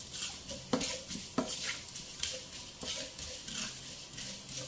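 A utensil scraping and clicking against a wok while stirring fennel and nigella (onion) seeds in hot mustard oil, about two or three strokes a second, over a light sizzle.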